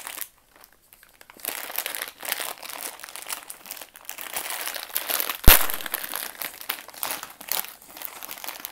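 Foil-lined plastic snack packet being crinkled and torn open by hand, with one sharp snap a little past halfway.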